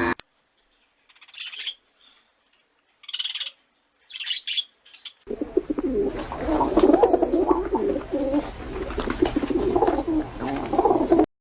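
Birds calling: a few short, high chirps, then from about five seconds in a dense run of overlapping lower calls that cuts off abruptly near the end.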